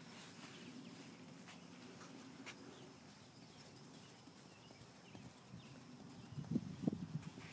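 Small pony's hoofbeats in soft sand arena footing at the canter, dull low thuds that grow louder near the end as the pony passes close.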